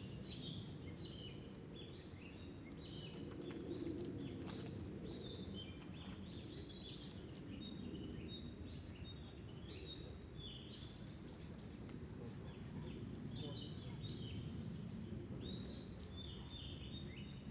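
Small birds chirping with many short, repeated calls over a steady low outdoor rumble.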